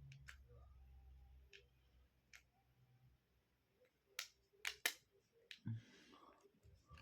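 Sharp plastic clicks of LEGO Technic parts being handled and snapped into place: a few scattered clicks, then three louder ones in quick succession a little past the middle, followed by a brief rustle. A low hum underneath stops about a second and a half in.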